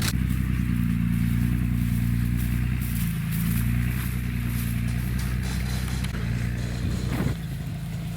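A motor vehicle engine running steadily with a low hum. Its pitch shifts slightly about three seconds in and again near the end.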